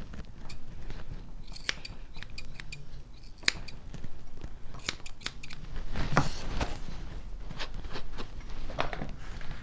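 Grooming scissors snipping the hair on a held-up dog's foot: irregular sharp snips, some in quick runs of two or three.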